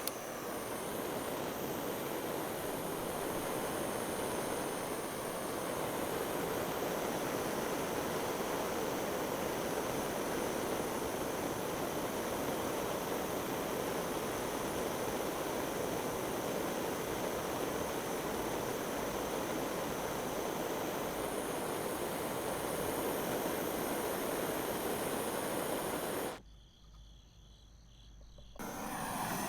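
Gas torch flame burning with a steady hiss. It is lit with a sharp click at the start and cut off abruptly about 26 seconds in.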